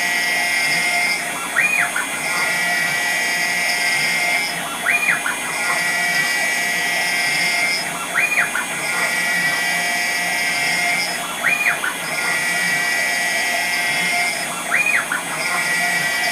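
6040 CNC router spindle whining steadily at a high pitch as a single-flute end mill cuts aluminium dry, with a brief rise-and-fall in pitch about every three seconds as the toolpath repeats its pass.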